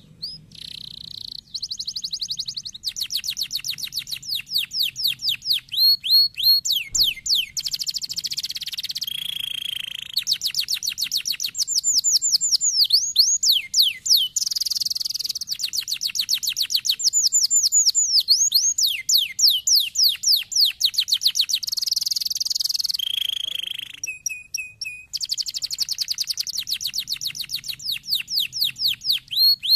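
Domestic canary singing a long, continuous song of rapid trills and repeated falling whistles, switching to a new trill every second or two.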